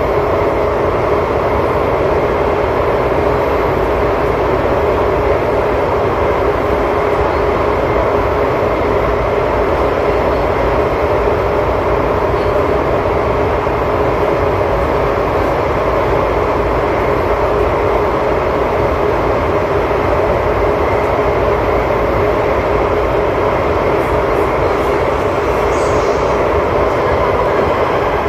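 Running noise inside a carriage of an SMRT C751B metro train travelling at a steady speed: a constant rumble of wheels on rail with a steady hum-like tone from the running gear.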